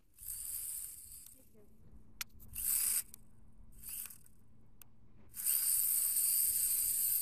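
WL Toys V959 toy quadcopter's small motors and propellers whirring in short spurts as the throttle is blipped, then running steadily from about five and a half seconds in. A single sharp click near two seconds.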